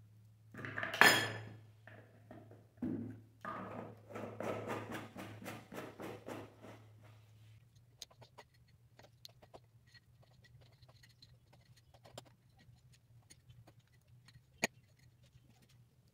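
Handling of a plastic reagent bottle and its screw cap, with a loud knock about a second in and a quick run of clicks and scrapes, then sparse light clicks and taps of a steel scalpel on a glass petri dish as soft sodium metal is cut into small pieces; one sharp tap near the end. A low steady hum lies underneath.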